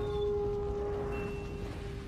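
Wolf howl sound effect from a logo intro: one long held note that fades out near the end, over a low rumble.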